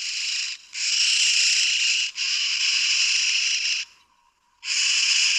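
Yellow-billed oxpecker calling: a series of harsh rasping hisses, a short one then two long ones close together, a pause, and another long hiss near the end.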